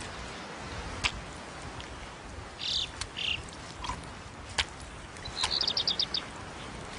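Birds calling over a steady background hiss: a couple of short high chirps around the middle and a quick run of about seven notes near the end, with a few sharp clicks in between.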